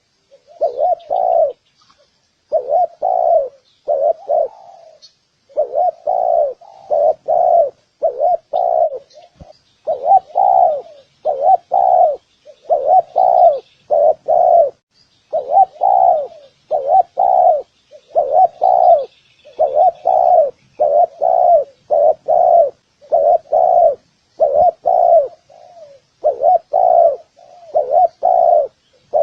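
Spotted doves cooing over and over: low coo notes in quick groups of two to five, with short gaps between the groups. Faint chirps of small birds sound behind them.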